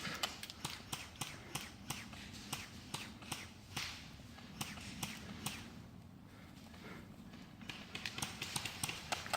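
Footsteps crunching over the ground as an airsoft player moves, a run of irregular sharp steps that grows quicker and louder near the end.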